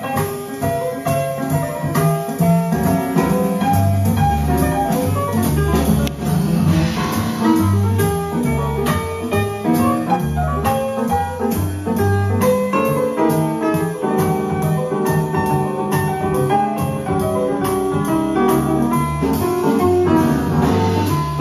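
Instrumental music with piano and a steady beat, played from a vinyl record on a turntable fitted with a Koetsu Urushi Tsugaru moving-coil cartridge.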